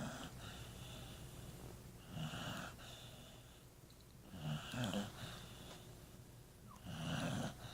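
A dog snoring in its sleep, one snore with each breath about every two and a half seconds.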